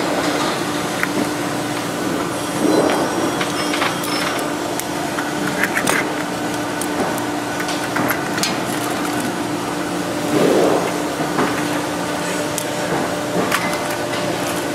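Scattered light clicks and metallic taps as Cleco fasteners are set with Cleco pliers into aluminium wing-spar parts and the parts are handled. Under them runs a steady background hum.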